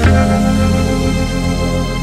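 Outro of a Western-tinged summer pop instrumental: the beat stops with one last hit at the start, and a held chord rings on, slowly fading.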